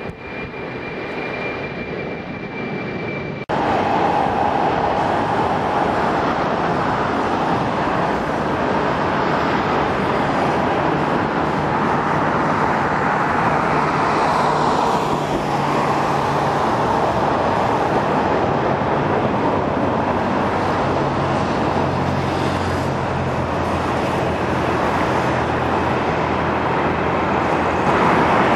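Airliner jet engine noise: a steady loud rush that starts abruptly about three and a half seconds in, after a quieter stretch with a faint high whine.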